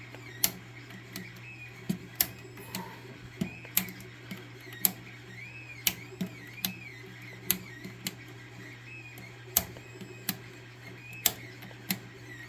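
Bench electronic test gear running: a steady electrical hum, a faint high whine that rises and falls in repeated arcs, and sharp clicks at irregular intervals, about one or two a second.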